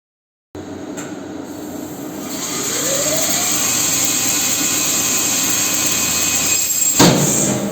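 Guardian meat bandsaw starting up and running steadily, getting louder with a rising whine over its first couple of seconds. Near the end a short, loud sharp noise cuts across it.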